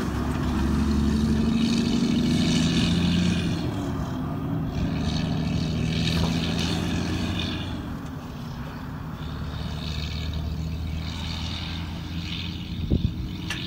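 Road train's diesel engine pulling away under power, a steady drone that gradually fades as the truck moves off down the road.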